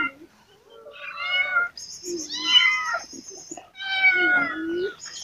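Hungry kittens meowing for food, about three drawn-out, wavering cries in a row.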